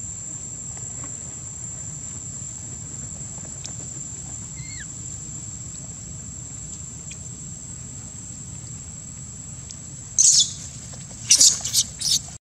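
Steady high-pitched insect drone, with one faint chirp. About ten seconds in come loud shrill squeals, one burst and then three or four more in quick succession, from macaques squabbling over fruit.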